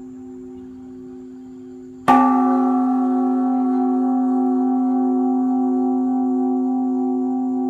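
Large Buddhist temple bell (đại hồng chung) struck once about two seconds in, then ringing on in a long hum with a slow waver. Before the strike, the ring of the previous stroke is fading.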